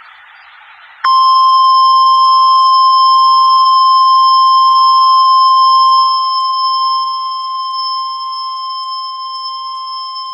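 NOAA Weather Radio warning alarm tone (1050 Hz) heard from a weather radio receiver: after a second of faint radio hiss, one loud, steady, high beep starts and holds, growing somewhat quieter in its second half. The tone is the alert signal that precedes a new watch or warning message.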